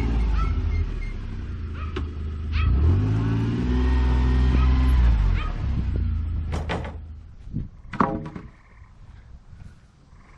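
A motor vehicle engine running, its pitch rising and falling, then dying away about seven seconds in, followed by a few sharp knocks.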